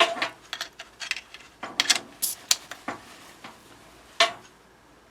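Irregular light metallic clicks and clinks, about a dozen spread over a few seconds, from handling the pneumatic riveter and its air-line quick-connect fittings.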